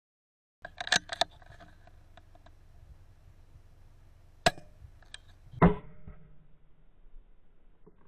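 A bolt-action CZ457 rifle in .17 HMR, heard through its scope-mounted recorder: a few sharp clicks about a second in, then a sharp crack about four and a half seconds in and a louder crack with a short ringing tail about a second later, as the rifle is fired at a rabbit.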